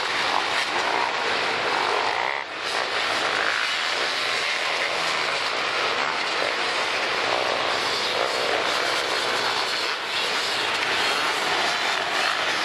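Engines of a large pack of racing ATVs running together as one continuous dense drone, with short dips about two and a half seconds and ten seconds in.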